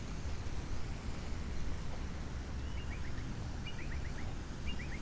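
A bird calls three times, about a second apart, in the second half. Each call is a short high note followed by a quick run of three or four chirps, over a steady low rumble of city traffic.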